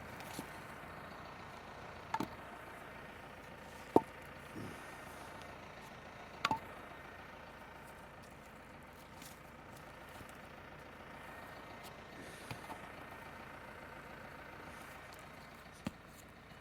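Blocks being handled and set down: scattered knocks and clunks, about six in all, the sharpest about four seconds in, over a faint steady background noise.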